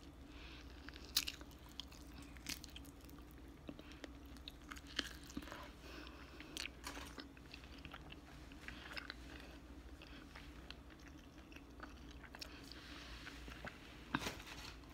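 Close-miked biting into a chicken wing, then chewing with scattered small crunches and mouth clicks.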